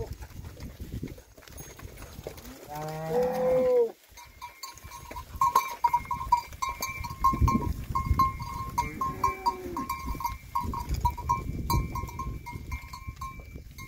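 Heifers mooing: one loud call about two and a half seconds in, a fainter one around nine seconds. From about four seconds on, a high pulsing tone repeats several times a second.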